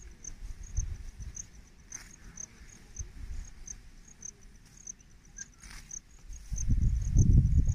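Insects chirping steadily, a short high chirp repeating about three to four times a second. From about two-thirds of the way in, a low rumbling noise swells and becomes the loudest sound.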